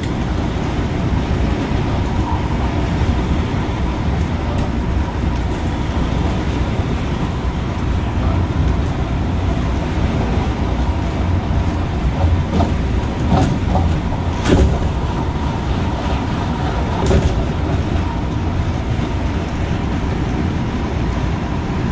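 MTR Tung Chung line CAF electric train running at speed, heard from on board: a steady rumble of wheels and rails with a faint steady whine. A few sharp clacks come in the middle.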